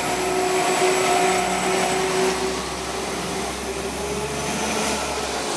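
London Midland Class 172 Turbostar diesel multiple unit moving past close by, its underfloor diesel engines giving a steady drone with a humming whine that drops slightly in pitch about halfway through.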